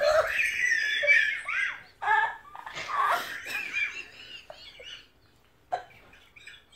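A woman laughing hard in high-pitched, broken bursts that weaken into breathy gasps and fade out about five seconds in.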